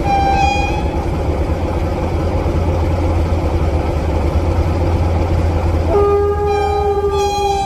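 Train horn: a brief blast right at the start, then about six seconds in a longer chord of several tones that holds past the end, over a steady low rumble.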